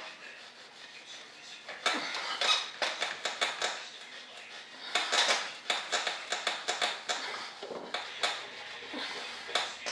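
Hand rubbing or sanding the face of a model-aircraft mold in quick back-and-forth strokes, a rapid scratchy rasp of about four or five strokes a second, in two main bouts starting about two seconds in and again about five seconds in.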